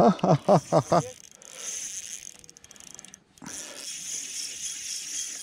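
A man laughs, a quick run of short 'ha-ha' bursts lasting about a second. Then a steady, high-pitched hiss or chirring takes over, dropping out briefly just past three seconds and coming back.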